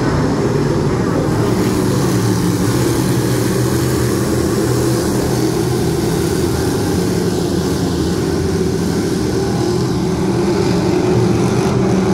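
A field of dirt-track race cars running laps together, their engines a loud, steady drone that swells slightly near the end.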